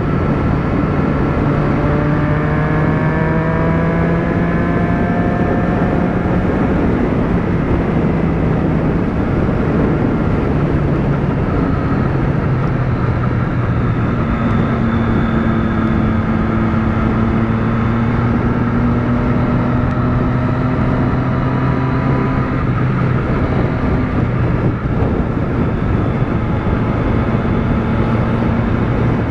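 Motorcycle engine running at a steady cruise under a constant rush of wind and tyre noise on a wet road. The engine pitch climbs slowly over the first several seconds, drops about twelve seconds in, then holds steady.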